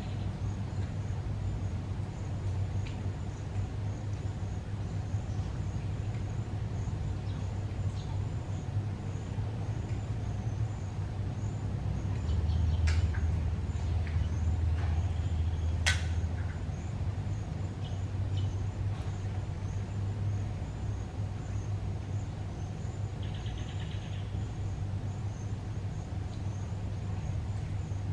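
Steady low rumble of road traffic on the concrete bridge overhead, swelling as a heavier vehicle crosses about halfway through. A few sharp clicks, and a brief bird chirp later on.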